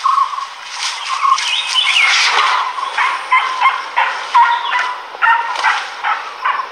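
A pack of dholes calling while mobbing an elephant: many short, high yelping whistles in quick succession, some sliding up and down in pitch.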